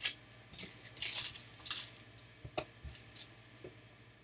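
Trading cards and their plastic holders rustling and scraping as they are handled on a desk, busiest in the first two seconds, followed by a few light taps.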